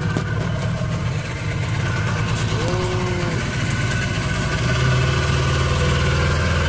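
Small boat's engine running steadily with a low, even note, getting a little louder about two-thirds of the way through.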